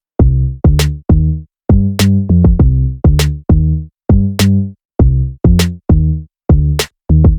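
Background electronic music: a drum-machine beat of sharp clicks over short, deep, pitched bass notes, in a repeating pattern with brief gaps between phrases.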